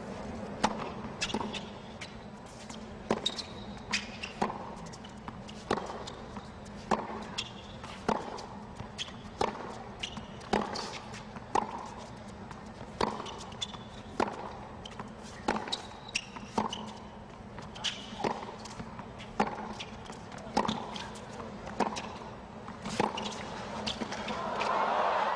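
A long tennis rally on a hard court: sharp racket-on-ball hits, roughly one a second, over a hushed stadium crowd. Near the end the crowd noise swells as the point finishes.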